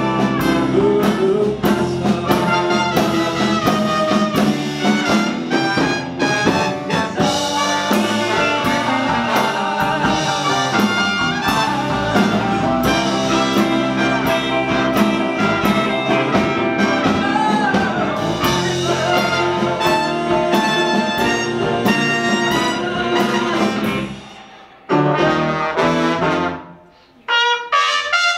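A live band with a horn section and electric guitar plays a funky instrumental passage with a steady beat. Near the end the band cuts out twice, leaving short gaps between stop-time hits.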